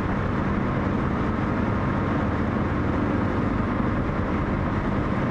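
Car engine and tyre noise heard from inside the cabin of a moving car: a steady hum and road rumble at an even speed.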